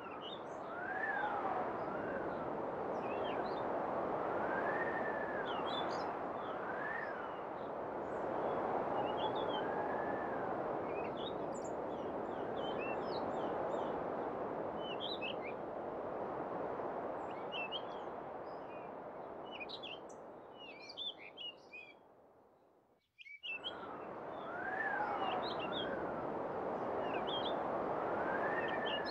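Wind blowing steadily with small birds chirping over it, short high chirps scattered throughout, and a faint whistle rising and falling now and then. The sound fades and cuts out briefly about three quarters of the way through, then comes back.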